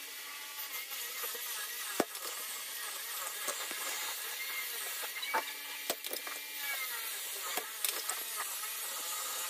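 Desoldering work on a circuit board: a scratchy scraping and rubbing, with a few sharp clicks from the spring-loaded desoldering pump. The loudest click comes about two seconds in, with others around six and seven and a half seconds.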